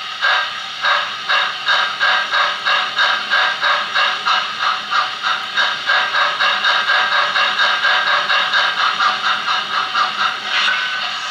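Digital sound decoder playing recorded steam-locomotive exhaust beats of a Great Central J11 0-6-0 through a small 28 mm speaker in an OO-gauge model's tender: the chuffs quicken steadily from under two to about four a second as the engine picks up speed, then run together into a continuous hiss near the end.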